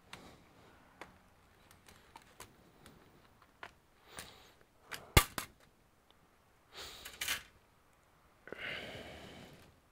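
A laptop being handled and worked on: scattered light clicks and taps, one sharp click about five seconds in, then two short scraping noises near the end.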